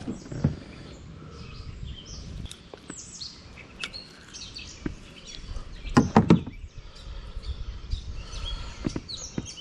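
Birds chirping throughout, with scattered sharp knocks, the loudest a quick run of three about six seconds in.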